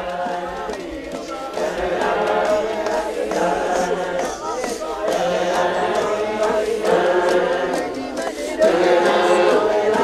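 A group of voices singing together in chorus, many pitches overlapping, growing louder near the end.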